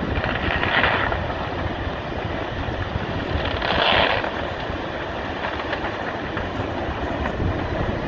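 Landslide of earth and debris sliding into the sea, heard as a continuous low rumble with wind buffeting the microphone. The noise swells louder briefly about a second in and again around four seconds in.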